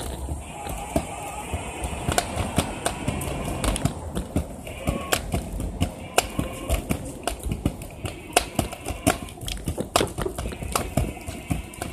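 Kick scooter's small wheels rolling over a concrete sidewalk, giving a rapid, irregular clatter of clicks and knocks. A steady high buzz comes and goes behind it.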